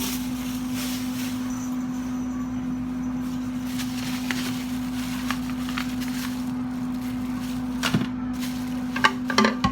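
A steady low hum, with a few light plastic clicks and knocks near the end as hard plastic cookware pieces are handled.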